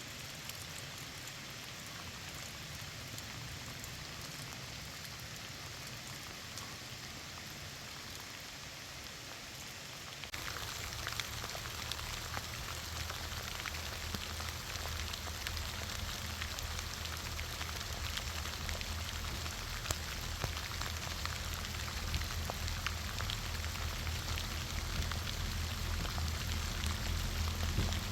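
Steady rain falling, with fine pattering of drops. About ten seconds in it becomes louder, with a low hum underneath.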